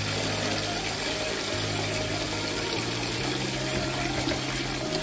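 Tap water pouring in a steady stream into a large cooking pot, a continuous rushing splash, over soft background music with slow held low notes.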